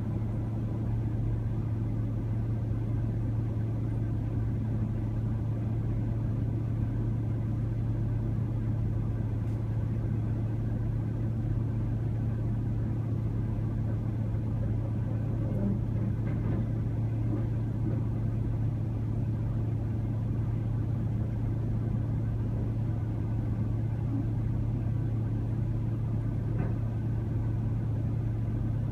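Diesel engine running steadily, a constant low drone with a few faint ticks.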